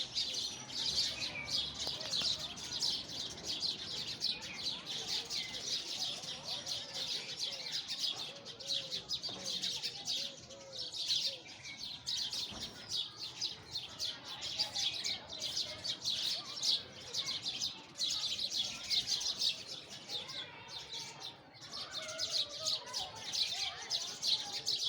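A flock of sparrows chirping, many quick chirps overlapping in a continuous high chatter.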